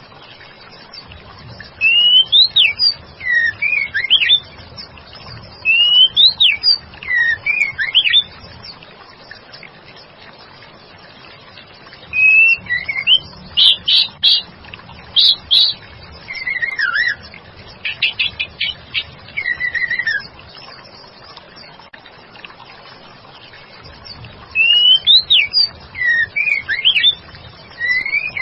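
White-rumped shama (murai batu) calls, given as a female calling a male: bouts of quick sweeping whistled notes mixed with rapid ticking strokes, about five bouts with pauses between. A steady trickle of running water hisses beneath.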